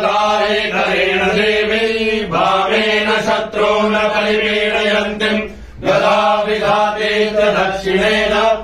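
Men chanting a Hindu prayer mantra in a steady recitation over a held low tone, with a short pause for breath a little past halfway.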